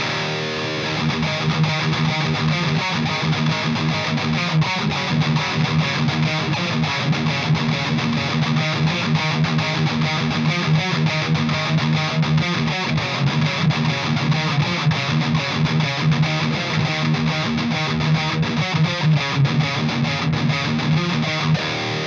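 Electric guitar played without a break through the gain channel of an EVH 5150III LBX valve head with EL84 power tubes, heavily distorted with a lot of saturation, the gain at about one o'clock and no overdrive pedal in front.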